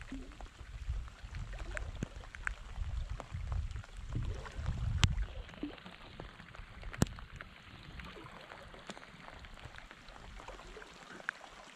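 Rain falling on a lake surface, with scattered sharp ticks of drops striking close by. A low rumble runs under the first half and dies away a little past halfway.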